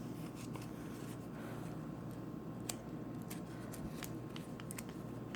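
Faint rustling and scattered small clicks of a Kinder Joy egg's wrapper being torn and peeled open.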